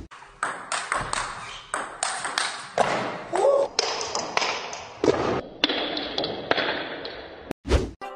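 Table tennis ball in a fast rally: a quick run of sharp taps off paddle and table, about two to three a second. A short burst of noise near the end.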